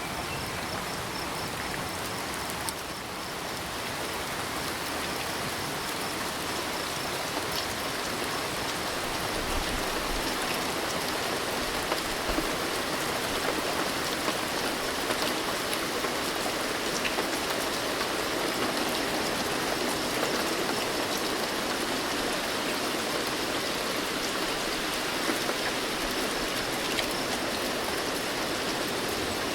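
Steady rain falling, a dense even hiss that swells a little a few seconds in. Crickets chirp faintly and high in the first several seconds, then fade under the rain.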